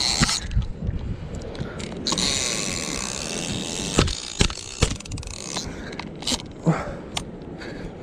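A seized fishing reel being worked by hand, its handle and gears scraping and clicking, with several sharp knocks from about four to seven seconds in.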